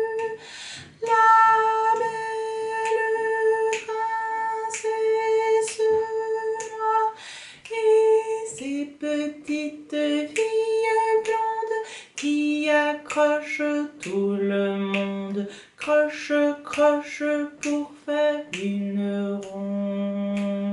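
A woman singing a simple beginner's melody with words, in long held notes stepping between a few pitches, the open-string notes of a string-instrument tune. It ends on a long low note held near the end.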